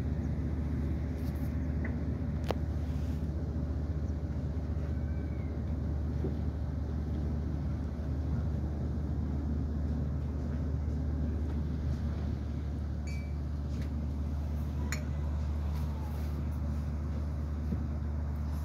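Passenger boat's engine running with a steady low drone, heard from the open deck, with a couple of light clicks.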